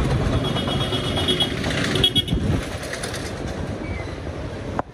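Vehicle horns honking over steady traffic rumble. A high-pitched horn sounds in the first second and a half and again briefly about two seconds in.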